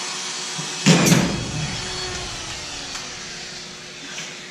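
A drywall sheet being forced into place around a door frame: scraping against the framing, then a loud thud about a second in that dies away slowly over the next few seconds.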